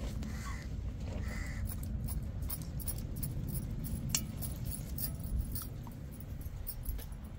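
Bangles clinking with scattered small clicks as goat liver is sliced into small pieces on an upright fixed kitchen blade (aruvamanai), over a steady low rumble; one sharper click about four seconds in.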